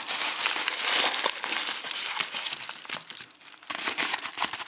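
Crinkling and rustling of white packing wrap being pulled off lock cylinders, thinning out near the end to scattered small clicks and metallic clinks as the lock parts come loose onto the table.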